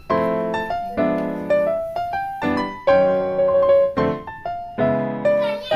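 Piano music: chords struck about twice a second, each fading after it is played.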